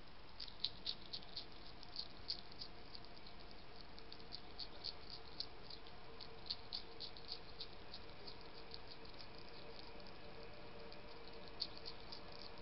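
A hedgehog crunching food, its chewing heard as quick, irregular clicks in clusters of several a second, thickest in the first couple of seconds and again about two thirds of the way through.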